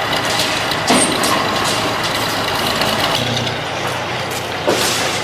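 Excavator engine running steadily, with two sharp knocks, about a second in and near the end.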